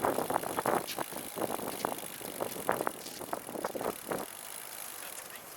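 Recumbent trike rolling with repeated irregular ticking from its rear drivetrain, which the riders take for a rear derailleur slightly out of adjustment. The ticking stops about four seconds in, leaving a quieter steady rolling hiss.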